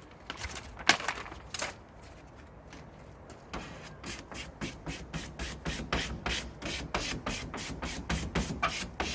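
Plastic card scraper rubbed firmly over a vinyl decal on a van's panel, pressing the sign down and pushing the air out. A few separate strokes at first, then from about halfway a steady run of quick strokes, about three a second.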